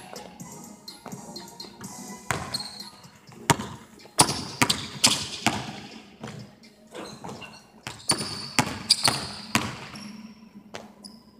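A basketball dribbled on a hardwood gym floor, in a quick, irregular run of sharp bounces that echo around a large, empty gymnasium.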